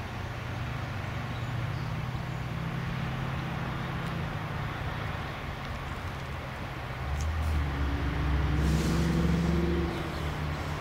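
Road traffic with a vehicle engine running steadily. About seven seconds in, a vehicle passes close, its low rumble louder for about three seconds before dropping away.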